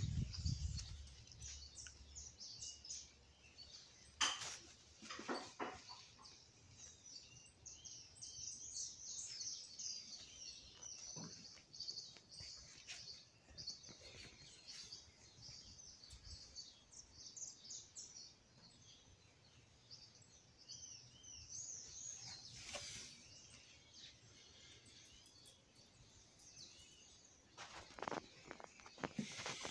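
Birds chirping faintly: a steady run of many short, high chirps and twitters. A few short knocks come about four seconds in and again near the end.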